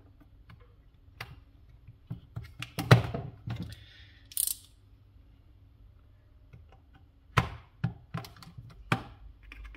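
Small metal hand tools clicking and knocking against a plastic casing and a silicone work mat: tweezers prying at the case seam and set down, a small screwdriver picked up, then a few sharp clicks as the plastic case is pried with it. The loudest knocks come about three seconds in, with a short scraping hiss just after.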